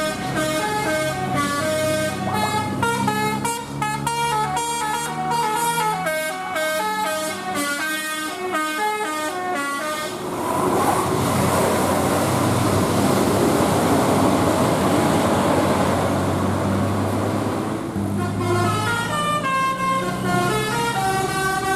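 Bus 'telolet basuri' musical horn playing a quick tune of stepping horn notes. About ten seconds in, a loud rushing noise of the bus driving by covers it for several seconds, and the horn tune comes back near the end.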